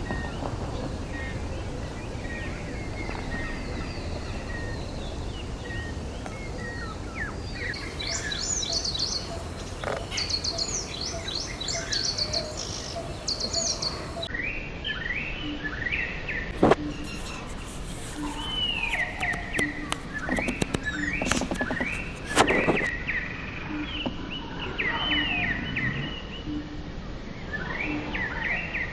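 Wild birds chirping and calling in short repeated notes and whistles over steady low background noise. Two sharp knocks come about two-thirds of the way through, with a brief rattle between them.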